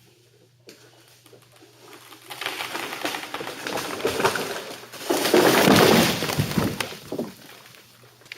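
Wood and brush crackling and snapping, with many sharp cracks building up over a few seconds to a loud crash about five to six seconds in, then dying away.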